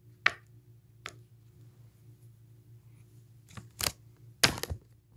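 A few short sharp clicks or snips of objects being handled, the loudest cluster about four and a half seconds in, over a steady low hum.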